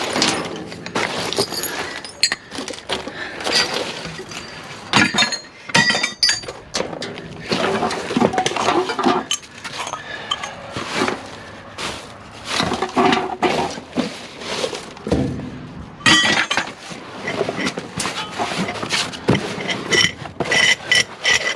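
Pieces of scrap metal and wire being handled and tossed by hand, clanking and clinking against each other in an irregular run of sharp knocks.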